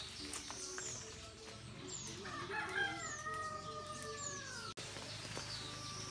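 A rooster crowing once: one drawn-out call starting about two seconds in and dipping in pitch at its end. Small birds repeat short, high, falling chirps around it.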